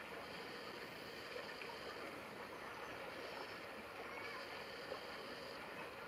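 Steady outdoor background noise, an even hiss with no clear bird call standing out.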